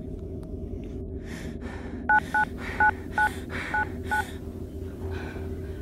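Mobile phone keypad touch-tone beeps as a number is dialed: six short two-tone beeps in quick succession, about two seconds in, over a low steady hum.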